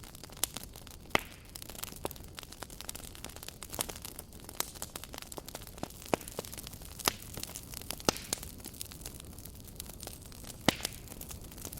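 Campfire burning: wood crackling and popping at irregular intervals over a steady hiss of the flames, with a few sharper pops about a second in and near the end.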